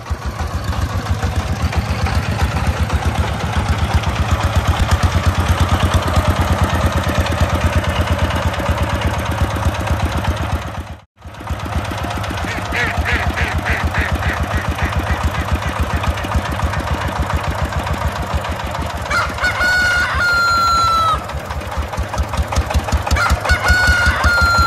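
Small tractor engine chugging steadily with a rapid, even beat, briefly cutting out about halfway through. Chicken clucking comes in partway through, and a rooster crows twice near the end.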